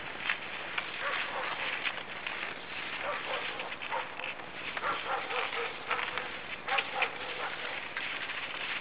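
Dogs barking and yelping repeatedly, over a steady hiss.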